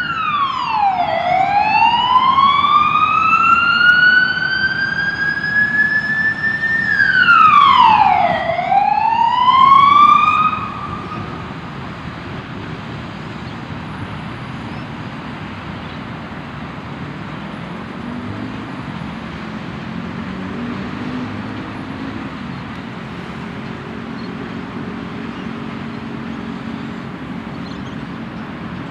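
Ambulance siren on a wail cycle, twice: each time the pitch drops quickly, then climbs slowly back up. It cuts off about ten seconds in, leaving steady traffic noise.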